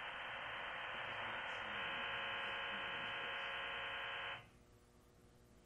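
Recorded High Frequency Data and Voice Link (HFDVL) digital radio signal, a PSK/OFDM data mode, played back through a speaker. It begins as a band of hiss, turns into a dense chord of many steady tones about two seconds in, and cuts off suddenly a little past four seconds.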